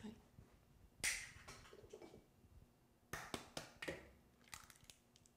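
Faint, scattered kitchen taps and clicks as ingredients are added to a mixing bowl: one sharp click with a short ring about a second in, then a cluster of taps around three to four seconds in.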